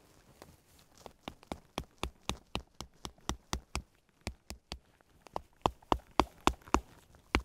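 Small hammer striking wooden sticks to drive them into the ground: a steady run of sharp knocks, about three a second, with a short pause partway through and harder blows near the end.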